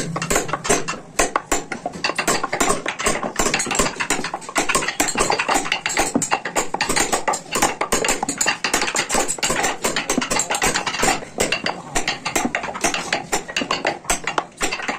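Small hammer tapping a hand carving chisel in a quick, steady run of light strikes, the chisel cutting outline patterns into a wooden vase.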